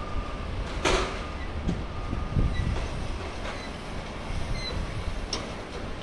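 Wind buffeting the microphone over the steady wash of breaking ocean surf, with a brief sharp noise burst about a second in and a few fainter clicks.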